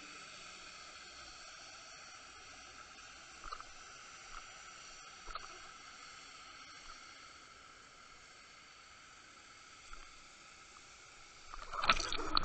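Faint, steady underwater hiss picked up by a submerged camera, with a few thin steady tones and a few soft clicks. Near the end comes a sudden louder burst of rushing, sloshing water noise as the camera rig is jerked through the water.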